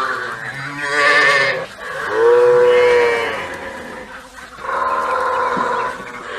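Cattle mooing: three long, drawn-out calls, the middle one the loudest.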